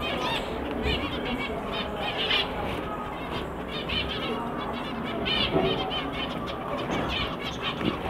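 Caged white and zebra finches chirping: many short calls overlapping, never loud.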